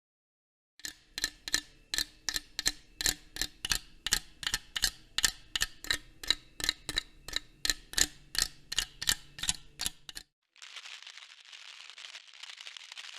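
A run of evenly spaced sharp clicks with a slight ringing tone, about three a second, stops after about nine seconds. It is followed by the steady crackling hiss of old analog TV static.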